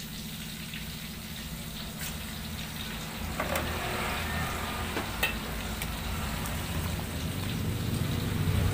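Vegetable soup boiling hard in an aluminium pot, bubbling steadily, with a few light clicks. Near the end a ladle stirs through the pot and the sound grows louder.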